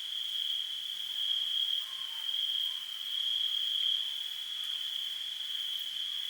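Crickets chirring in one steady, unbroken high trill: a night-time ambience sound effect.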